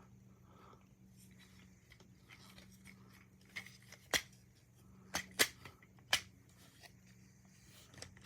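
Plastic Transformers action figure being handled and transformed: about five sharp clicks as its plastic parts and joints are moved and snapped into place, the loudest about 4 and 5.5 seconds in, over a faint steady low hum.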